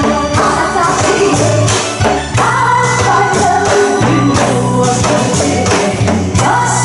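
Janggu (Korean hourglass drum) struck in quick, irregular beats in a seoljanggu performance, over loud music with singing.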